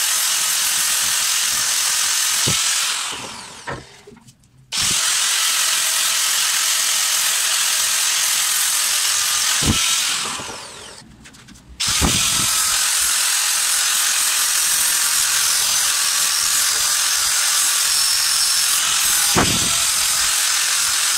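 Electric angle grinder running under load, its abrasive disc grinding the rough metal of a bench vise smooth, a steady high-pitched whine and hiss. Twice the grinder is switched off and winds down, then starts straight back up a second or two later.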